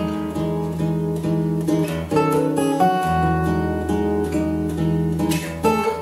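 Two steel-string acoustic guitars playing together, strummed chords with the notes left ringing, changing chords a few times.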